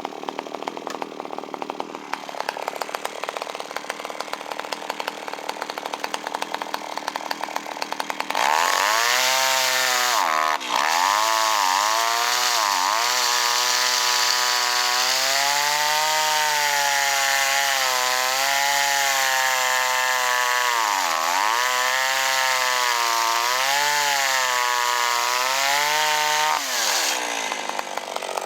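Kyoritsu CS-362 two-stroke chainsaw running again after its ignition repair. It idles for about eight seconds, is then opened up to full revs with the engine speed dipping and recovering several times, and drops back to idle near the end.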